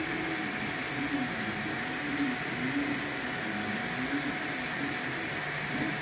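Homebuilt CoreXY 3D printer mid-print: the hotend's small cooling fan and the part-cooling blower whir steadily and are the loudest part. Under them a quieter low stepper-motor whine rises and falls in pitch about once a second as the print head moves.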